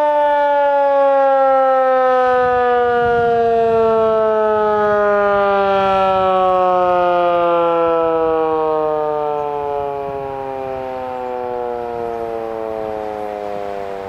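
Federal Signal 2001-SRN electromechanical civil defense siren winding down: one loud wailing tone whose pitch falls slowly and steadily, with its level starting to fade about ten seconds in.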